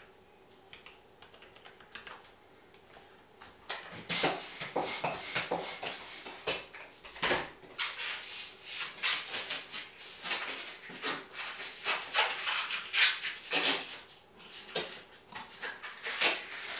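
Inflated latex 260 modelling balloon being handled and bent, about four seconds in: the rubber rubs and squeaks against the hands in quick, irregular strokes for roughly ten seconds.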